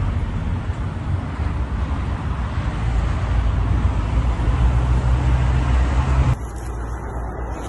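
Wind buffeting a phone's microphone outdoors: a loud, steady low rumble with hiss over it, dropping to a quieter, thinner noise near the end.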